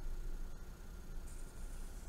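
Felt-tip marker drawing on paper, a faint scratching that picks up about two-thirds of the way in, over a steady low hiss and hum of room tone.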